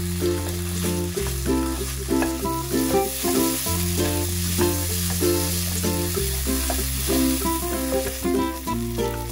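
Chicken and potato curry filling sizzling in a nonstick frying pan as a wooden spatula stirs it, being cooked down until dry. Background music of short repeated notes over a bass line that changes every two and a half seconds or so plays throughout.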